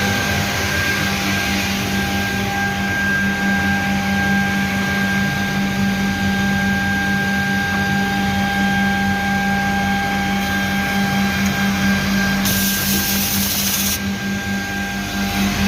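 Birlik Makine BM7 PVC edge banding machine running, its motors giving a steady, even hum with a constant whine. Near the end a short hiss cuts in for about a second and a half.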